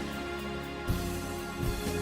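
Orchestral film score.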